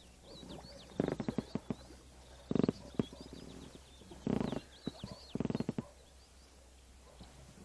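About five short bursts of rapid, pulsed croaking calls, with a small bird chirping high over them.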